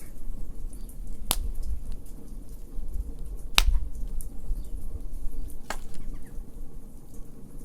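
Wood fire crackling, with three sharp pops standing out among smaller ticks over a low, steady rumble of the flames.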